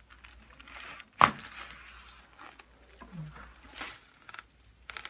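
Chiropractic adjustment: one sharp crack about a second in as the joint is thrust and released, followed by softer rustling.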